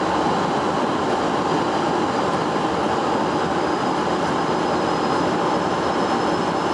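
Steady flight-deck noise of an Airbus A330 on final approach: an even rushing drone of airflow and engines heard inside the cockpit, with a faint thin high whine running through it.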